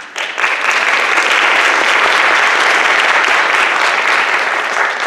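Audience applauding. The clapping swells quickly to full strength, holds steady, and fades away near the end.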